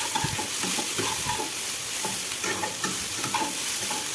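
Metal spatula stirring and scraping through pointed gourd, onion and tomato frying in oil in a kadai, with the oil sizzling steadily under repeated scraping strokes. The spices have just been added and are being mixed in.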